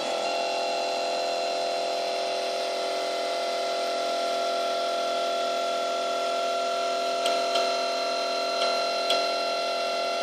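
Zmorph 2.0 S 3D printer's stepper motors whining at one steady pitch as the print head travels a long straight line. A few faint ticks come in the second half.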